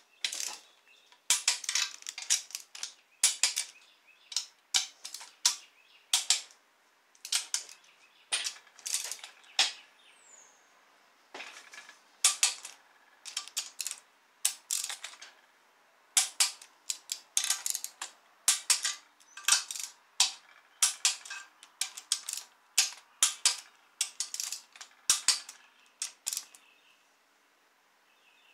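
Click-type torque wrench ratcheting in repeated bursts of quick sharp clicks with short pauses between, as engine bolts are run down and torqued to 20 ft-lb.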